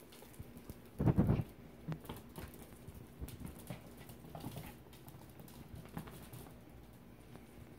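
Pembroke Welsh Corgi puppy's paws pattering and scrabbling on a hardwood floor in scattered quick taps as it chases a toy, with a heavy thump about a second in.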